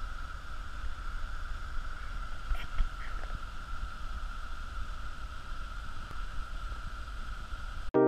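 Water pouring over a small river weir, a steady rushing hiss, with wind buffeting the microphone in gusty low rumbles. Piano music cuts in abruptly at the very end.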